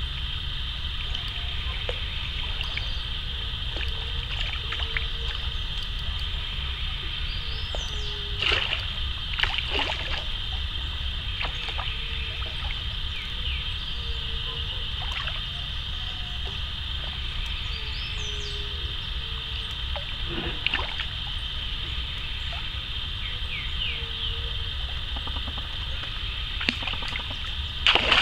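A hooked pacu splashing at the pond's surface several times as it is played on a bent rod, the loudest splash near the end, over a steady high hiss and low rumble.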